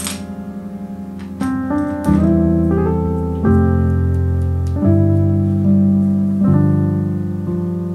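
Background music: a keyboard playing slow, held piano-like chords that change every second or two.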